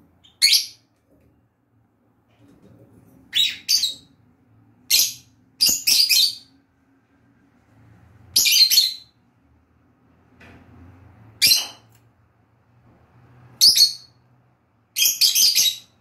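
Lovebird giving shrill, high chirps: eight short bouts, some single, some in quick pairs, one a little longer in the middle, and a rapid run of chirps near the end.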